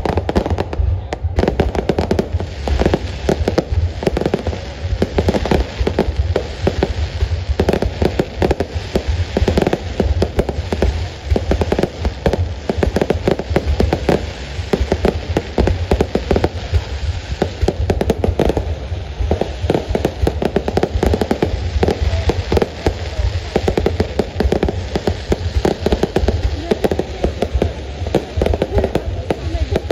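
Aerial fireworks display going off in a continuous barrage: dense, rapid bangs and crackles with no let-up.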